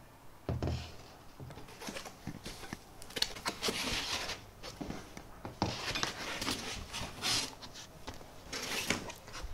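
Handling of shipping packing: a dull knock about half a second in as a metal rod is set down on a cardboard box, then irregular scraping, rustling and creaking of foam and cardboard as a foam sheet is lifted out of the box.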